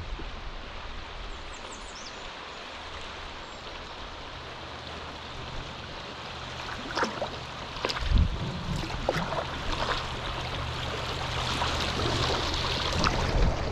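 Rushing river water at a rapid, growing steadily louder toward the end, with scattered sharp splashes and knocks from about halfway through.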